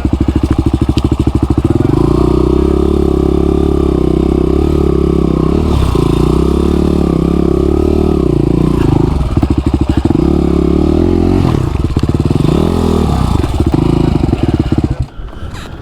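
Trail motorcycle engine under way, close up: it pulses slowly for the first couple of seconds, then the revs rise and fall over and over as the throttle opens and closes, dropping back to a slow pulse twice in the middle. The engine sound cuts off abruptly about a second before the end.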